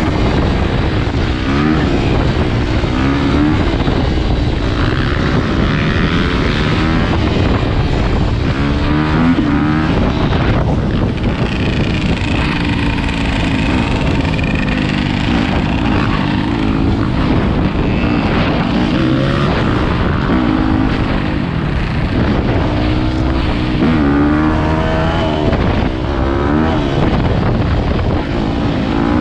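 Dirt bike engine running loud on the move, revving up and dropping back again and again as the rider accelerates and shifts.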